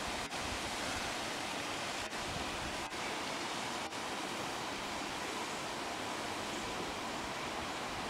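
Steady rushing hiss of a waterfall's falling water, even throughout apart from four brief dips in the first half.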